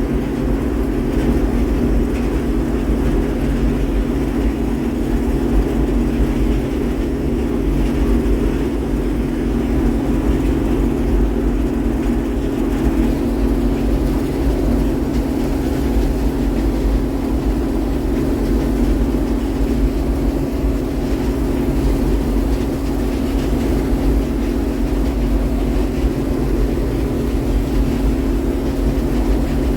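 Farm harvesting machinery running steadily under load: a loud, constant engine drone with a steady hum and deep rumble that does not change.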